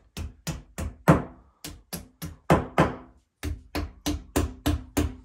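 Claw hammer tapping metal bolts into drilled holes in a wall, a quick steady run of knocks, about four a second, with a short pause a little past halfway. Some of the harder blows ring briefly.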